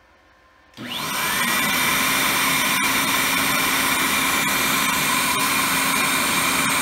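Electric air blower driving a venturi switched on about a second in: its motor whine rises as it spins up, then it runs steadily with a loud rush of air through the venturi tube.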